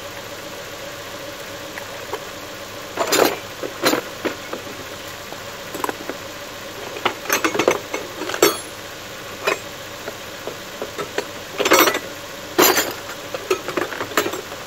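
Metal hand tools (wrenches, sockets, screwdrivers, pliers) clinking and clattering as they are dropped and sorted into a plastic toolbox and its lift-out tray, in irregular bursts.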